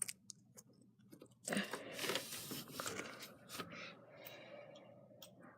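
Plastic LEGO pieces being handled and pressed together: a few sharp clicks, then a stretch of crunchy clicking and rubbing that fades out near the end.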